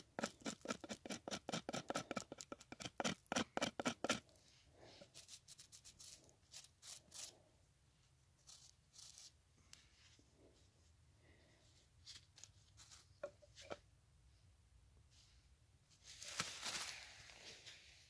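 Mora Bushcraft Black knife shaving a bark-covered branch: a quick run of short, crisp carving strokes, about five a second, for the first four seconds, then slower scattered strokes. A longer rustle comes near the end.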